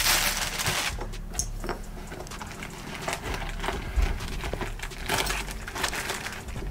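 Paper in a sneaker box rustling and crinkling as it is handled, loudest in the first second, then softer scattered rustles and light knocks.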